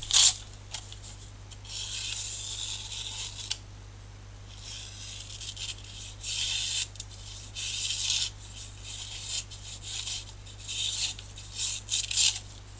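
A freshly sharpened knife blade slicing a sheet of paper into thin curling strips, in a series of short rasping cuts. The paper-cutting test shows how sharp the edge is. A steady low hum sits underneath.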